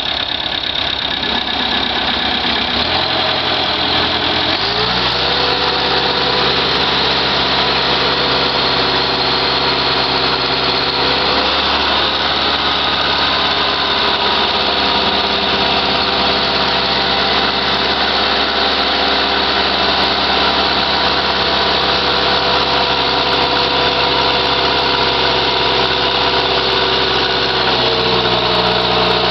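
Allis-Chalmers D15 diesel tractor engine running steadily while it drives a PTO dynamometer. Its pitch steps up about four to five seconds in, holds, and rises again near the end, as the load and engine speed change during the horsepower test.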